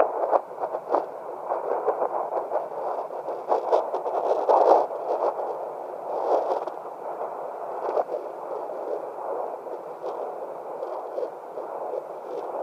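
Fetal Doppler's speaker giving a steady static hiss with irregular scratchy crackles as it searches for a fetal heartbeat.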